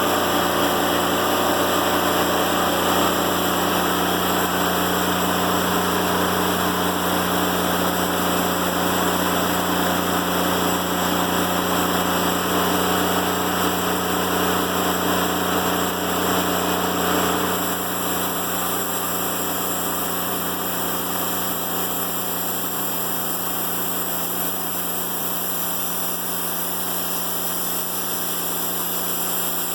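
Timberking 1400 portable band sawmill running steadily, its engine droning under the hiss of the band blade sawing a black locust log. A little past halfway the sound thins and gets slightly quieter.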